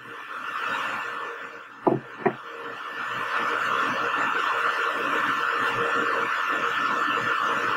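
Water running from a kitchen tap into a stainless-steel sink, a steady hiss that builds up in the first second, with two short knocks about two seconds in.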